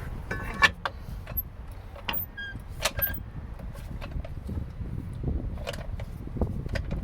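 Scattered metallic clanks and clicks as a trolley jack is worked under the suspension to press a hub onto a shock absorber, a few with a short metallic ring, over a low rumble of handling noise.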